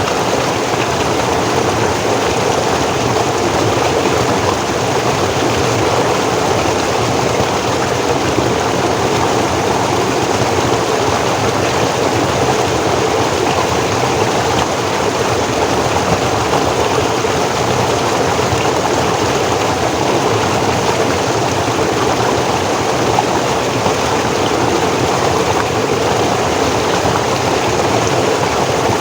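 Forest stream flowing: a steady, unbroken rush of water.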